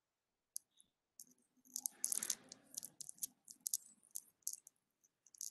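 Quiet, irregular clicks and taps on a computer, starting about half a second in and coming in quick clusters.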